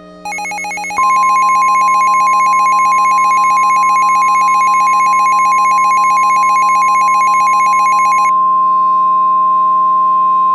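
Simulated NOAA Weather Radio emergency alert tones: a steady single-pitch alarm tone of the 1050 Hz warning-alarm kind starts about a second in and holds, over a rapid pulsing electronic beeping that stops about eight seconds in, with a low steady drone underneath. The alert announces a tornado emergency.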